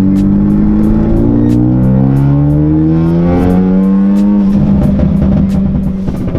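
Ford Focus ST's turbocharged four-cylinder, breathing through a straight-piped MBRP turboback exhaust, pulling hard under acceleration. The engine note climbs for about four and a half seconds, then eases to a steadier, rougher note.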